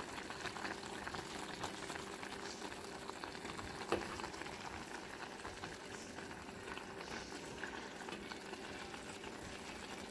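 A pot of paksiw na bangus (milkfish stewed in vinegar) simmering on the stove, bubbling and popping steadily. A single sharper knock about four seconds in.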